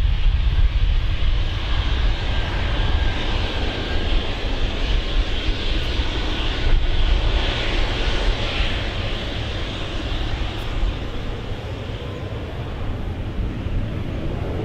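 Embraer 195 airliner passing with its jet engines running: a steady, noisy roar with a deep rumble underneath, loudest about halfway through and easing a little afterwards.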